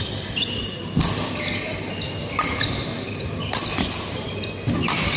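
Badminton rally: sharp racket strikes on the shuttlecock and players' shoes squeaking and stamping on the court, echoing in a large hall.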